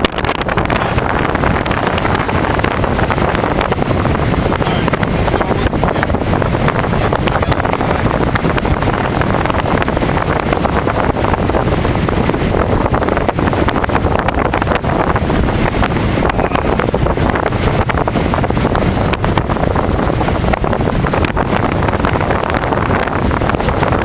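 Storm wind blowing hard across the microphone: loud, steady wind noise with a heavy low rumble.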